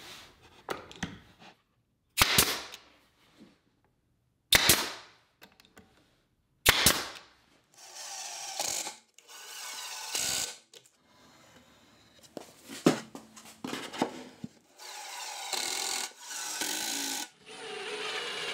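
Pneumatic nail gun firing three single shots, a couple of seconds apart, tacking plywood drawer parts together. Then a cordless Milwaukee impact driver drives screws into the plywood in several short runs of one to two seconds each.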